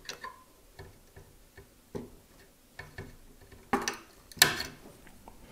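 Irregular small plastic clicks and taps of a SOIC8 test clip being squeezed and worked onto a soldered BIOS chip, a fiddly fit, with the two loudest clicks about three quarters of the way in.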